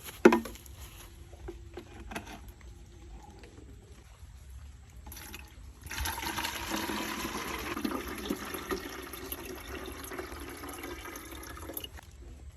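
A sharp knock just after the start, then about six seconds in, water starts running or pouring steadily for around six seconds before stopping.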